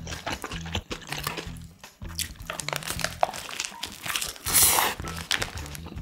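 Bites into a toasted sandwich and chewing, with short crunchy and sticky mouth sounds, as its paper wrapper crinkles, loudest in a rustle about four and a half seconds in. Background music with a steady bass line runs underneath.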